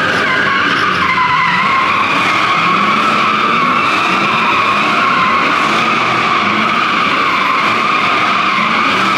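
Tyres squealing continuously as drift cars slide on concrete, the squeal wavering slightly in pitch, with engine noise running underneath.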